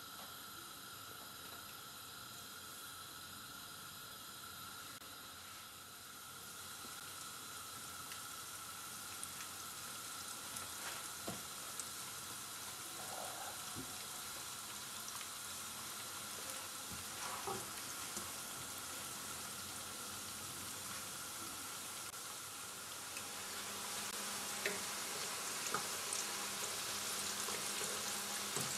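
Floured aubergine (eggplant) slices frying in hot oil in a pan, a steady sizzle that grows louder about six seconds in and again near the end as the pan fills. Scattered light clicks of a fork against the pan as the slices are turned.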